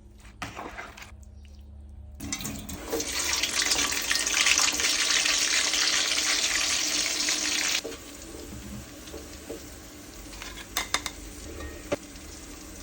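Water from a kitchen tap running into a sink, turned on about two seconds in and cut off sharply near eight seconds. A few light clinks follow near the end.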